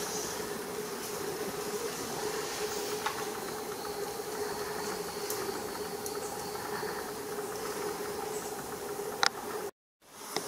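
Steady rainforest ambience: a constant insect drone over a hiss, with a few faint clicks. The sound cuts out completely for a moment near the end.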